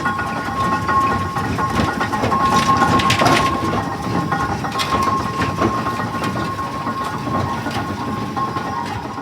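Fowler BB1 steam ploughing engine working, a continuous mechanical clatter with a thin steady high tone running through it; it swells louder about three seconds in.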